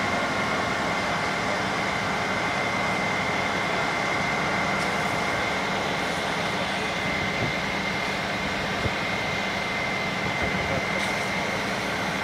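Fire engine's engine and water pump running steadily: a constant drone with a steady high whine over it.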